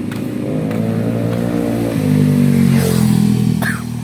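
Motorbike engines on the road: one passes close, its pitch rising and then falling away, and another engine carries on steadily after it.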